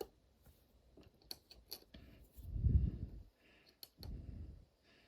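Light clicks and ticks of small metal lock parts as the discs and spacers are worked out of a disc detainer lock, with a few low muffled rumbles of handling, the loudest about two and a half seconds in.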